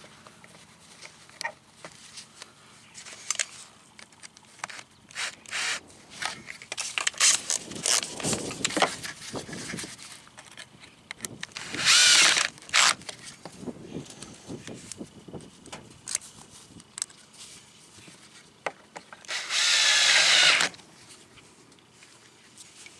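Cordless drill/driver spinning in short runs to drive the screws of a license plate lamp housing: a brief run about halfway through with a quick second pulse, and a longer run of about a second near the end. Between the runs, gloved hands click and rustle against the plastic housing.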